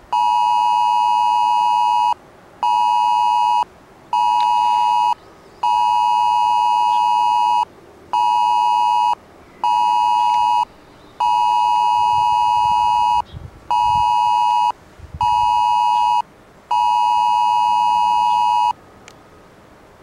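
Smartphone cell-broadcast emergency alert tone sounding a test warning: a loud steady beep in a long–short–short pattern, repeated four times and ending on a long beep.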